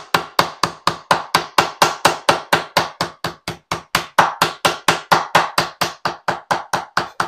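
Raw conch meat being pounded with a wooden spoon on a bamboo cutting board to tenderize it: a steady, fast run of smacks, about five a second.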